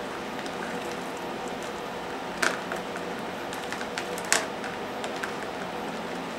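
Two male Madagascar hissing cockroaches scuffling in a small clear arena: two brief, sharp clicks, about two and a half and four and a third seconds in, the second the louder, with a few fainter ticks between, over a steady hum.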